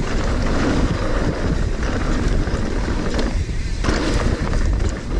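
Wind rushing over the camera microphone as a Trek Slash 8 full-suspension mountain bike rolls fast down a dirt trail, its knobby tyres rumbling over the ground with light rattles and clicks from the bike.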